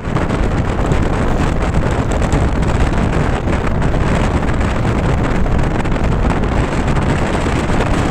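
Loud wind buffeting the microphone over the steady rumble of a moving bus.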